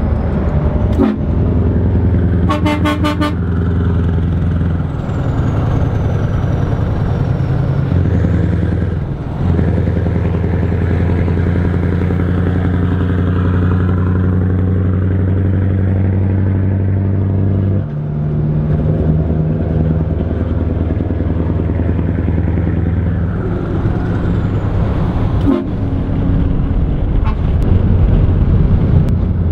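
Scania V8 truck engine running loud alongside at motorway speed, a steady low drone whose pitch shifts a few times. About two and a half seconds in, a horn sounds briefly with a pulsing tone.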